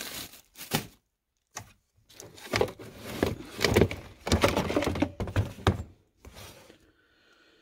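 Stored items being shifted and handled while rummaging through a box: a few separate sharp knocks in the first two seconds, then a busier run of thunks and scraping for several seconds.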